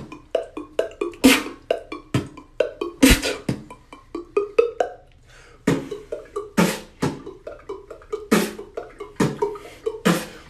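Vocal beatboxing: quick mouth-made clicks and drum hits, with a strong hit every second and a half or so and a brief pause about five seconds in.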